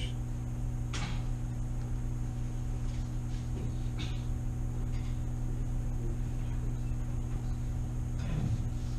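Steady low room hum with a few faint, short clicks.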